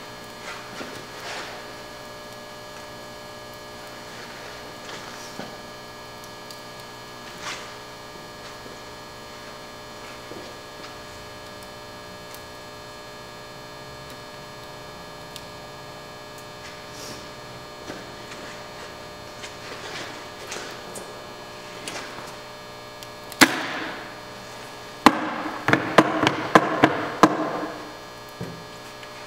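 Steady electrical hum with faint scattered ticks, then about 23 seconds in a sharp knock followed by a quick run of loud knocks and clinks, about three a second for two seconds, as something at the base of a liquid nitrogen dewar is handled.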